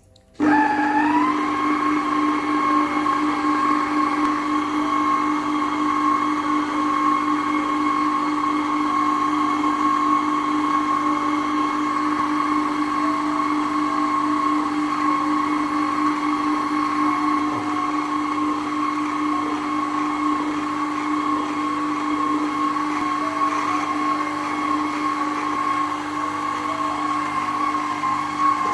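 Electric stand mixer switched on and running with its dough hook turning through flour for sweet bread dough. It starts suddenly, its pitch rises briefly as the motor comes up to speed, then it holds a steady motor whine.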